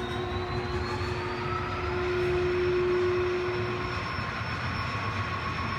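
The spindle of a Blanchard No. 32-60 rotary surface grinder, a 60 HP machine, running with a steady mechanical hum. A high whine rises in pitch over the first two seconds as the spindle comes up to speed, then holds steady. A lower steady tone drops out about four seconds in.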